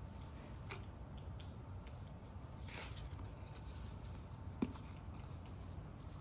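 Wood campfire crackling, with scattered small ticks and one sharper pop about four and a half seconds in.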